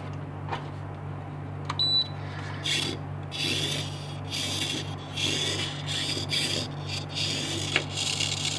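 A short electronic beep, then a 1/76-scale Turbo Racing micro RC car's tiny electric drive motor and gears whirring in repeated spurts of about a second each as it is driven, over a steady low hum.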